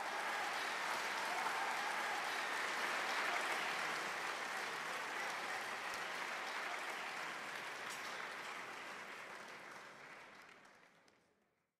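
Applause from a large audience, steady at first and then fading out over the last couple of seconds.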